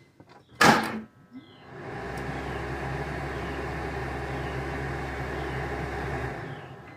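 A sharp knock about a second in, then a BMW 325i's replacement cabin blower motor spins up, runs steadily and winds down near the end. It runs with no abnormal noise now that its cover is back on.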